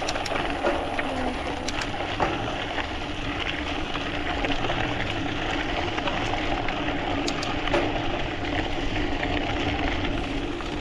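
Mountain bike rolling downhill on a dirt and gravel track: a steady rush of tyre noise and wind on the camera microphone, with a low rumble and scattered small clicks and rattles from stones and the bike.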